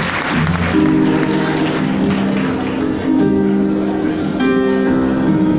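Live band beginning a slow song with held chords from guitar and keyboard, coming in about a second in as the audience's applause fades out.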